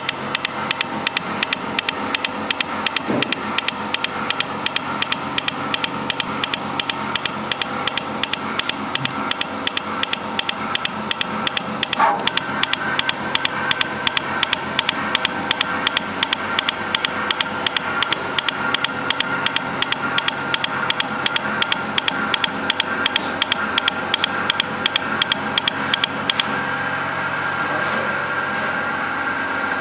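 Solder paste jet printer machine clicking steadily at about four clicks a second, over a steady mechanical hum. Near the end the clicking stops and a steady hiss carries on.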